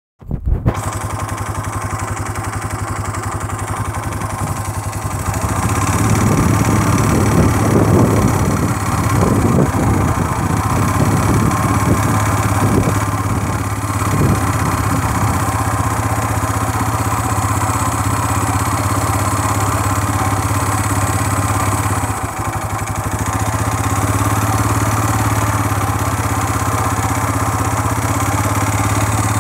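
Quad bike's four-stroke engine running at low speed under a light throttle. It picks up a little about five seconds in and eases off briefly a few seconds before the end. The title likens its note to a two-stroke's.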